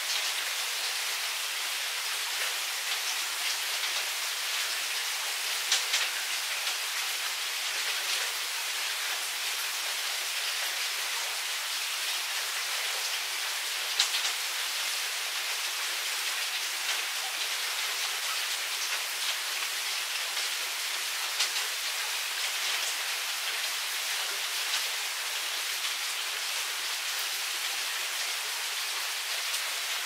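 Steady rain, an even hiss, with now and then a single louder drop landing close by, the sharpest about 14 seconds in.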